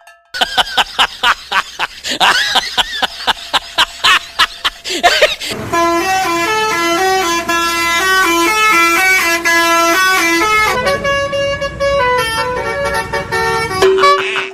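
Telolet bus horn, a Basuri-type multi-tone horn, playing a tune of short notes stepping up and down. The first five seconds hold a run of quick, repeated pitched beeps.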